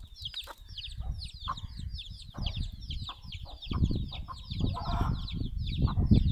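Chicks peeping without pause in quick, high, falling chirps, several a second, with a hen's low clucks now and then. A low rumble underneath grows louder in the second half.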